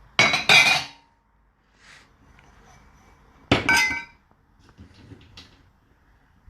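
Clean dishes clinking and clattering as they are lifted out of the dishwasher rack and set down, in two short bursts about three seconds apart, with a brief ring after each.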